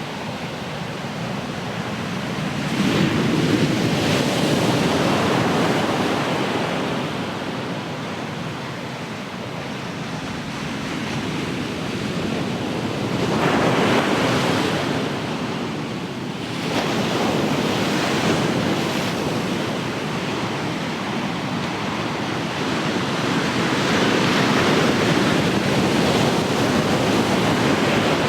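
Ocean surf: waves break and wash up the shore in several swells a few seconds apart, under a steady hiss of water.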